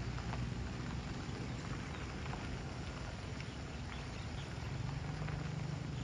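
Distant Alsthom diesel locomotive running as it approaches: a steady low engine hum that grows stronger about five seconds in, with faint scattered high ticks.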